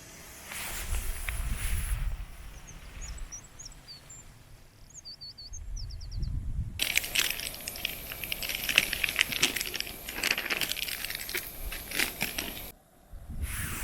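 A small bird chirps a few quick high notes a few seconds in. Then a dense crackling, rustling noise starts about halfway through, runs for about six seconds and stops abruptly near the end.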